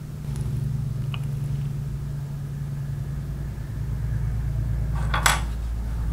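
Steady low hum that grows a little louder, with a faint tick about a second in and one sharp click about five seconds in as a small circuit board is handled and turned over in gloved fingers.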